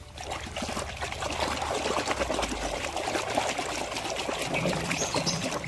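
Water pouring and trickling over a muddy toy vehicle as it is rinsed, building about half a second in and then running steadily.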